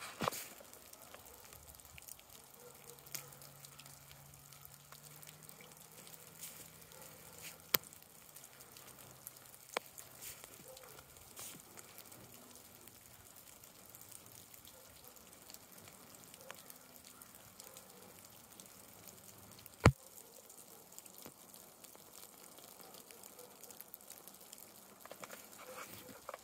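Melting snow dripping from pine branches: scattered small drips and ticks over a faint steady hiss, with one sharper tick about three-quarters of the way through.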